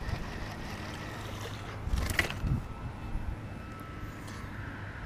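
Steady low background rumble, with a short splashing burst about two seconds in as a small fish is lifted out of the pond on the line.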